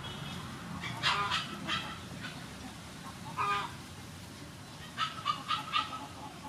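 Domestic poultry calling in the background: a couple of short calls about a second in, another past the middle, and a quick run of four near the end.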